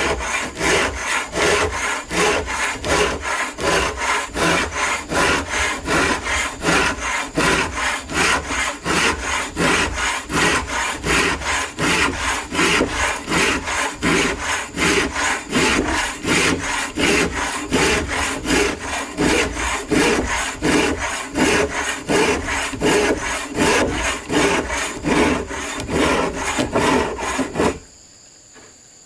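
Hand saw cutting through bamboo in quick, even back-and-forth strokes, stopping abruptly near the end.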